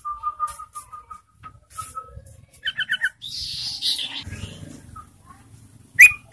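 Yellow-vented bulbul singing: a soft run of short, even notes, then a quick three-note phrase, and two loud sharp chirps near the end.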